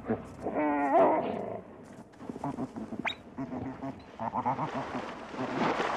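Wild animals snarling and growling as they fight, with one loud wavering call about a second in and rougher growls and a brief thin squeal after it.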